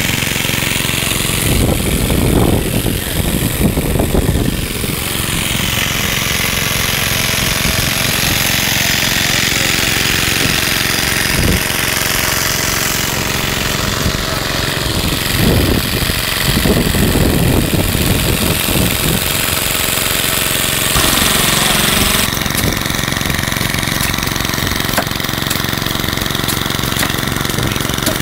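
Vintage engines running steadily, with people talking over them twice.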